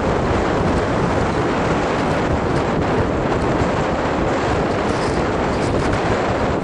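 Loud, steady rushing noise of wind buffeting the microphone, with a low rumble throughout.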